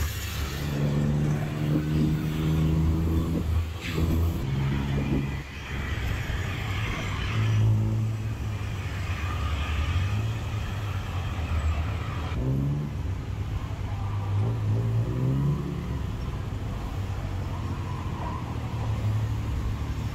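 Tuk-tuk (auto rickshaw) engine running and revving through traffic, heard from the open passenger cab, the engine pitch rising and falling several times as it speeds up and slows. These things rattle.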